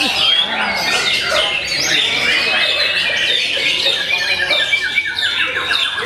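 White-rumped shama singing a fast, unbroken stream of varied whistles, slurred glides and chattering phrases, with a rapid rattling trill about five seconds in.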